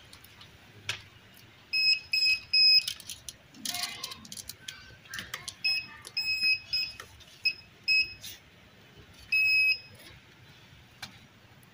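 Handheld pinpointer metal detector giving high short beeps in groups, three about two seconds in, a quick run in the middle and one longer beep near the end, as it is probed through loose brick rubble: it is signalling a metal target, a coin. Faint clatter of stones being moved between the beeps.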